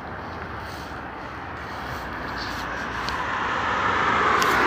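Outdoor traffic noise, a vehicle approaching: an even rushing sound that grows steadily louder over the second half.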